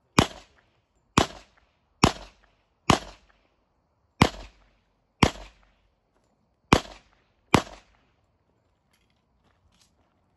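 Eight handgun shots fired at the targets of a practical-shooting course, spaced unevenly about a second apart, each a sharp crack with a short echo.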